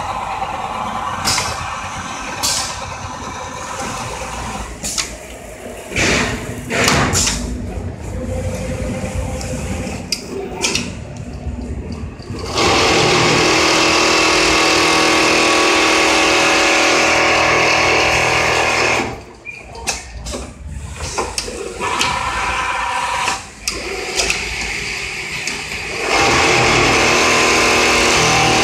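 Richpeace automatic template sewing machine stitching a cushion cover panel at speed: a loud, steady machine run that starts about halfway through, stops about six seconds later, and starts again near the end. Before it, irregular clatter and sharp clicks.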